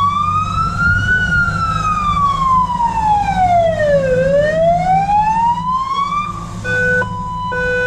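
Fire brigade vehicle's siren, first in a slow wail that rises, falls to a low point about halfway and rises again, then switching near the end to an alternating two-tone hi-lo pattern. A low engine rumble runs underneath.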